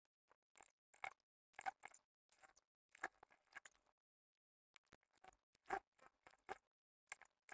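Faint rustling and crinkling of printed fabric being handled and shifted about, in short irregular bursts.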